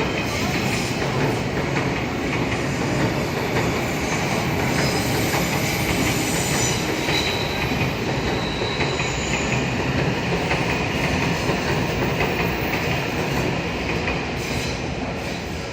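An Odakyu Line electric train running over the track with a loud, steady rumble of wheels on rail. The sound begins to die away near the end.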